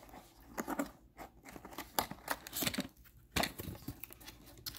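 Packaging being opened by hand: irregular tearing, scraping and rustling of cardboard and plastic, with a few sharper knocks, the loudest about two seconds in and again past the three-second mark.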